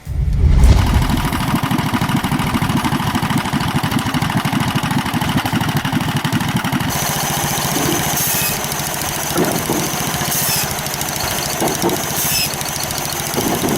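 A small engine running steadily with a rapid firing beat, loudest in its first second. About halfway through, a hiss joins it, with louder surges about every two seconds.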